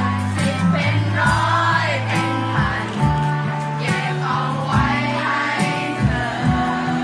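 Live pop ballad played on acoustic guitar and bass, with the audience singing the lyrics together as a crowd.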